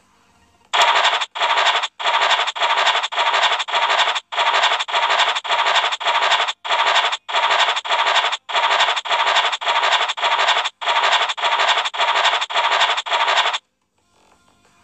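Online scratch-card game's scratching sound effect, a short scratch played over and over, about two to three a second, as the squares are uncovered one by one; some two dozen in a row, stopping a second before the end.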